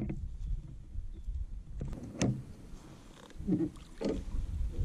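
Gear being handled in a plastic fishing kayak: low bumps and scrapes against the hull and net, with a sharp click about two seconds in.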